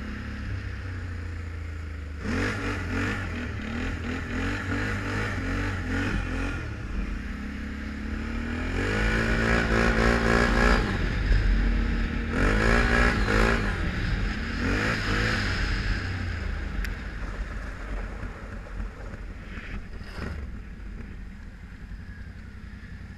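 Can-Am Renegade 1000 ATV's V-twin engine under way, revving up in several throttle bursts and easing off between them, then settling lower and quieter as the quad slows near the end.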